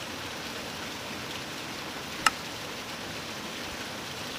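Steady rush of a fast-flowing river, with a single sharp click a little past halfway.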